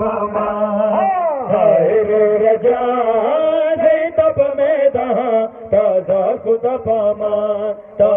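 Male voices chanting a noha, a Shia lament, in a drawn-out, gliding melodic line over a low note held steady underneath.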